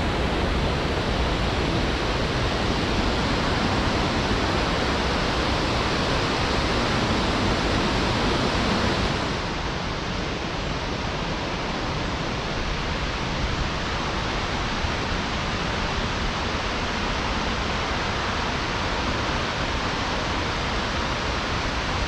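Steady rushing of a waterfall, a constant even noise that turns slightly quieter and duller about nine seconds in.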